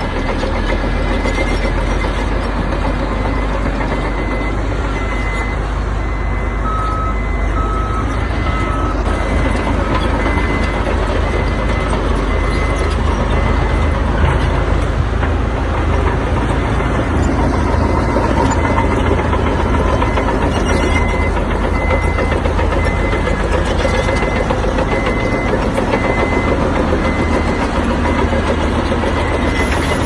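Heavy construction machinery running steadily with a deep engine drone, while a reversing alarm beeps in regular pulses through much of it; a second, lower-pitched alarm beeps a few times about seven seconds in.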